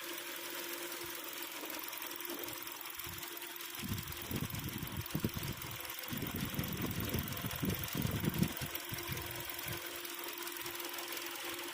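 Hyundai Sonata DN8's 2.5-litre four-cylinder engine running with a steady rattling knock, the abnormal engine noise being diagnosed. Irregular low bumps come and go between about 4 and 9 seconds in.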